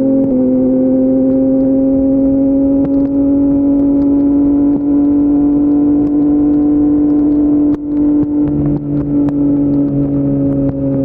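Yamaha MT-09's 890 cc inline-three engine running through an Akrapovic full-system exhaust while riding, holding a steady note whose pitch creeps slowly upward. About eight seconds in, the note shifts lower and stays there.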